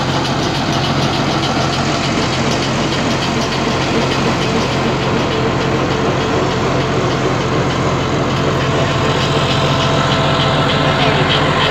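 John Deere tractor's diesel engine running steadily under load, driving a PTO-powered post hole digger auger that bores into the soil.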